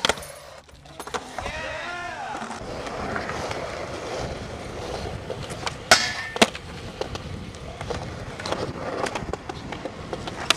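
Skateboard wheels rolling on concrete, with sharp snaps of the tail popping and the board landing, the loudest pair about six seconds in.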